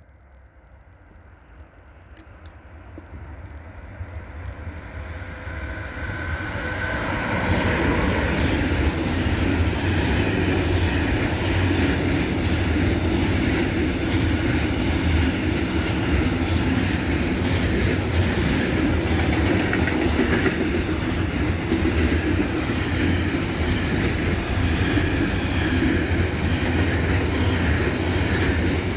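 Freight train approaching along the track, its rumble building over about eight seconds, then wagons passing close by with a loud, steady rumble and rattle of wheels on rails.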